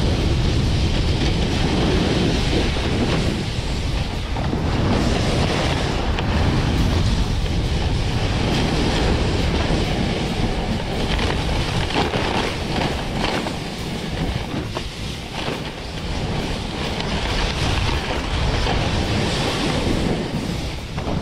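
Splitboard sliding and carving down a snow slope, its base and edges hissing and scraping on the snow, under loud wind buffeting on the microphone.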